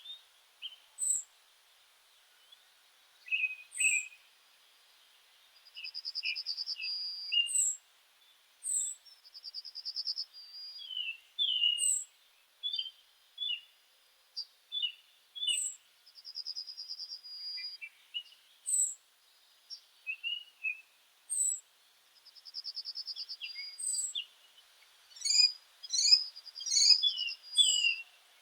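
Several songbirds singing and calling together: short high downslurred chirps throughout, and a rapid trill about a second and a half long that comes back every few seconds. The calls crowd together near the end.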